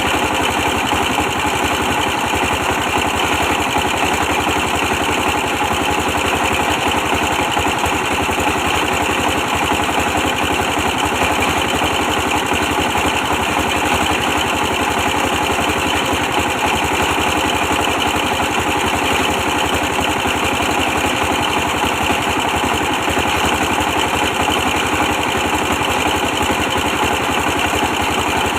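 A 24 hp diesel engine running steadily with a fast, even beat, driving brick-press machinery.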